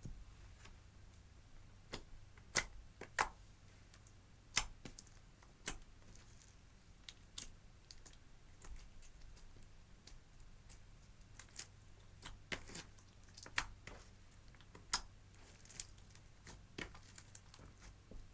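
Slime being kneaded and stretched by hand, giving irregular sharp clicks and pops.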